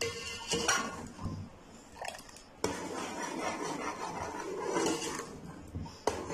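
A metal ladle stirring thick rice kheer in a metal pot, scraping along the bottom and sides, with a sharp clink against the pot about two and a half seconds in and another near the end.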